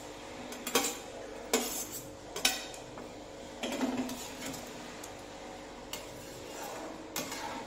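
A metal spoon clinking and scraping against an aluminium kadhai as a curry is stirred. There are about four sharp clinks in the first four seconds, then a few lighter ones.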